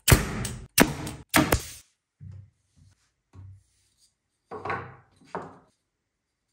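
Pneumatic nail gun firing three times into wood in quick succession, each shot a sharp crack with a short burst of air. Softer wooden knocks and thuds follow.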